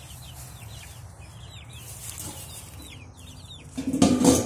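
Young chickens peeping over and over in short, falling cheeps. About four seconds in, a galvanized metal can lid is handled with a loud metallic clatter.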